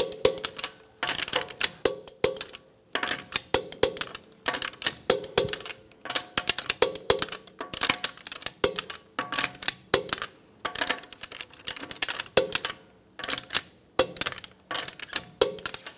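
Click-type torque wrench ratcheting on the wheel's lug nuts: short bursts of quick metallic clicks, somewhat more than one burst a second, as the nuts are torqued to 80 foot-pounds in a star pattern.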